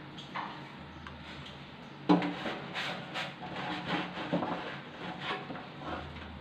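A knock about two seconds in, then irregular rubbing and scraping as a cloth is wiped around inside the metal blower housing of a kitchen chimney hood.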